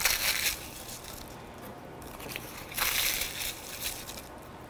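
Crisp, fully baked puff pastry being broken up by hand, crunching and crackling. There are two main spells of crunching, one at the start and one about three seconds in, with a lighter crunch after the second.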